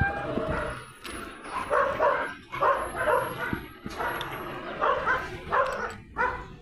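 A dog barking repeatedly, about two barks a second, beginning after the first second or so.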